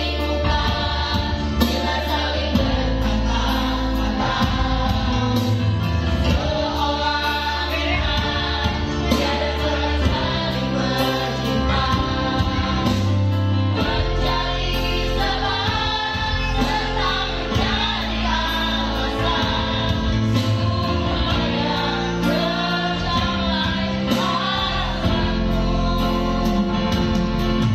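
Mixed group of men and women singing together into microphones over electronic keyboard accompaniment with a steady beat; some of the voices are off-key.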